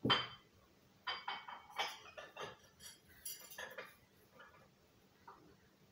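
Metal closet doorknobs clinking and rattling as the rope tassels hanging from them are pulled and let go, with a loud knock at the start and then a run of irregular clinks.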